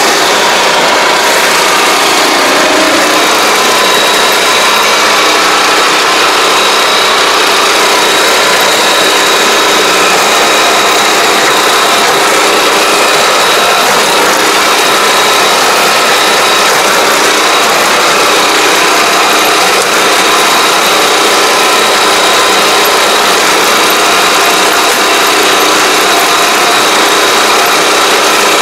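Small engine of a riding crop sprayer running steadily and loud close by, with a steady high whine over it.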